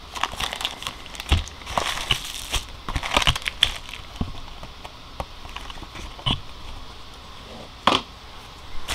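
Packaging being handled by hand: clear plastic bags crinkling and a cardboard box rustling, in irregular short rustles and clicks, busiest in the first few seconds, with one sharper click near the end.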